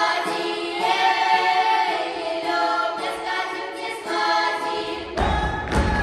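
Unaccompanied folk choir singing a traditional Tula-region Russian folk song, several voices together in held, sliding lines. About five seconds in, heavy thudding beats and tapping come in under the voices.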